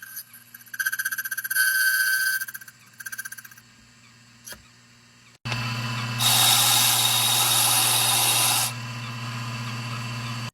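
Key-cutting machine cutting brass key copies: a pulsing whine of the cutter on a blank that fades away, a click, then the motor starts with a hum and a louder grinding cut for a few seconds, the motor running on until it stops at the end.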